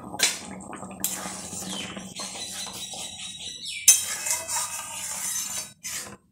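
A spatula stirring thick gravy in an aluminium kadai, scraping and knocking against the metal pan, with the sharpest clank about four seconds in.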